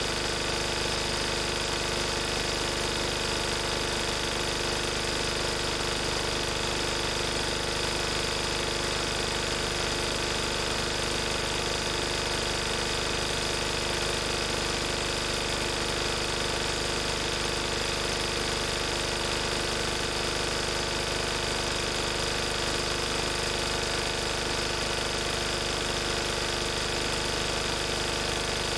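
1994 Lister Petter AD1 single-cylinder air-cooled diesel generator set running steadily at its governed 3000 rpm.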